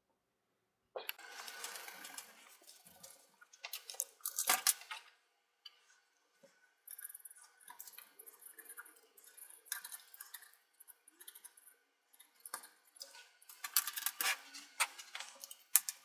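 Small handling noises of laptop repair work: a cotton swab rubbing over the CPU heatsink and fan area, with light clicks and taps of fingers on the plastic and metal parts. The clicks come most thickly near the end.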